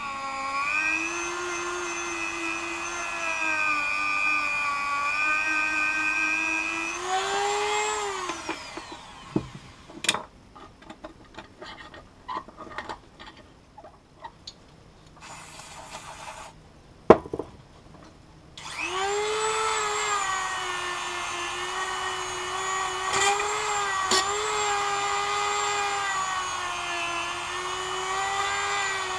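Dremel rotary tool with a small wire wheel whining steadily at high speed, scouring hardened grease varnish and corrosion out of an outboard's steering pivot tube. It winds down about eight seconds in, leaving a few clicks and knocks and a short hiss. It spins back up about ten seconds later and runs on.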